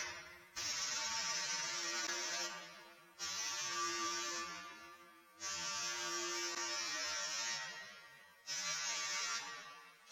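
A small electric power tool, such as a sander or rotary tool working the metal or handle, running in four short spells. Each spell starts suddenly and dies away over about a second.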